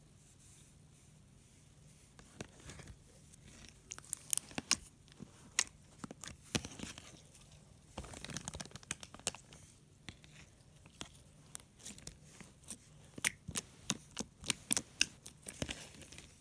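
Sparkly slime being squished and stretched by hand, giving a run of sharp, sticky clicks and pops. Faint at first, it becomes a dense crackle from about four seconds in.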